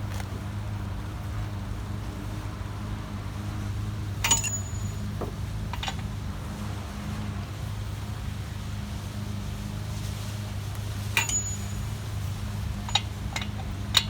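A few sharp metallic clinks from hand tools, socket and wrench on the front axle nut and hub. Two of them ring briefly, about four seconds in and again near eleven seconds. A steady low hum runs underneath.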